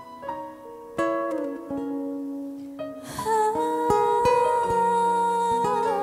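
Instrumental intro of a slow ballad: sparse struck or plucked notes ringing out, then about three seconds in a held melody note with a slight waver comes in over sustained chords and the music grows louder.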